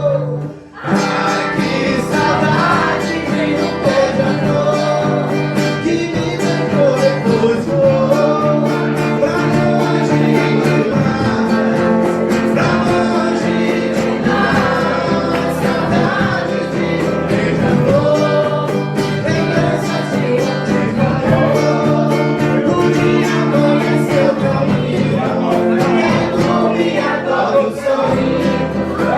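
Background music: a song with guitar and a singing voice, with a brief break about a second in.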